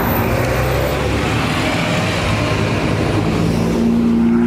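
Ferrari sports car engines running at low revs in slow traffic, a steady low drone under tyre and street noise, with one engine note growing louder near the end.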